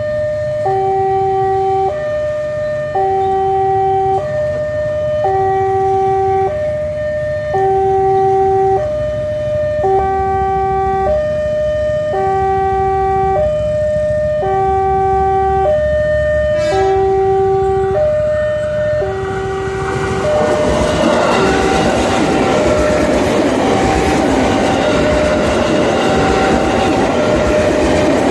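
Electronic level-crossing alarm sounding, cycling between a longer low note and a shorter higher note roughly every two seconds. From about twenty seconds in, an electric commuter train's wheels rumble over the rails through the crossing while the alarm keeps sounding.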